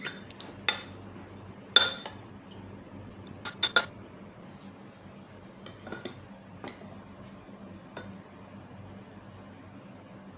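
A metal spoon clinking against a bowl while ingredients are mixed. There are several sharp, ringing clinks in the first four seconds, including a quick cluster of three, then fainter, sparser taps.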